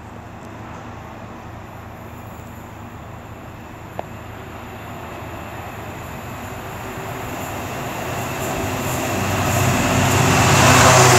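Freightliner Class 66 diesel-electric locomotive approaching with its EMD two-stroke V12 engine running. Its hum grows steadily louder over the last few seconds as it nears. A single short click about four seconds in.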